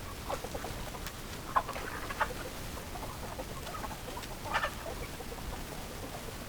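Chickens clucking: a scatter of short calls over a steady hiss, loudest about a second and a half in and again near four and a half seconds.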